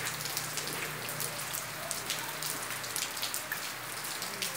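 Heavy rain falling steadily: an even hiss with many sharp ticks of drops landing close by.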